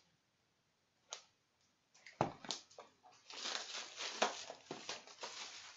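Crinkling and rustling of loose clear plastic wrapping as an album box is handled and pulled free of it. It comes in irregular crackles, beginning after a single click about a second in and busiest in the second half.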